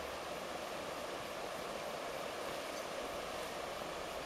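River rapids rushing steadily over rocks, a constant even hiss of fast shallow water.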